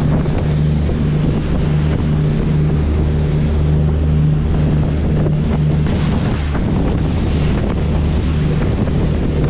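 Passenger ferry's engines running with a steady low drone, with wind buffeting the microphone and water rushing past the hull.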